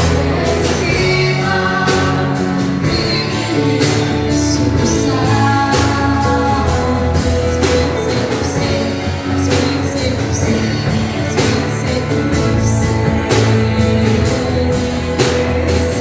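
Christian worship music: a band with drums and singing, played as rehearsal before a church service.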